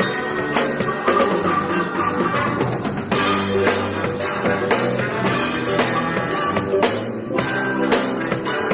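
A live church worship band playing an instrumental passage, led by a drum kit with bass drum and snare over keyboard or guitar chords.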